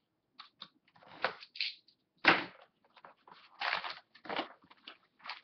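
Clear plastic shrink-wrap being torn and crinkled off a sealed cardboard trading-card box, in irregular crackling bursts, the loudest about two seconds in.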